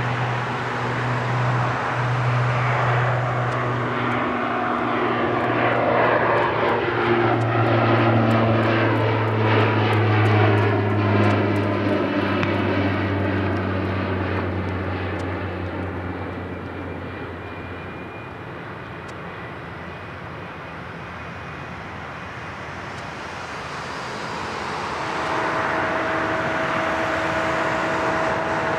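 Boeing 777-300 jet engines at taxi power, a steady rumble with whining tones that drift in pitch. It swells about a third of the way in, fades past the middle, then comes back near the end with a steady whine.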